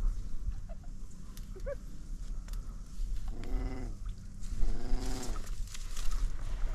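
Retriever letting out two drawn-out, low, whining moans, about three and a half and five seconds in, with a steady wind rumble on the microphone.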